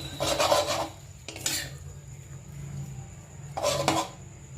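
A cooking utensil scraping and stirring boiled instant noodles in a pan: three scraping strokes, the first and longest at the start, over a faint steady low hum.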